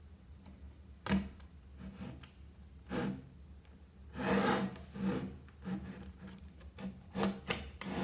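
Small magnetic balls clicking and rubbing against one another as a slab of them is pressed and shifted onto a block of more balls. There are a few sharp clicks, and a longer rubbing sound about four seconds in.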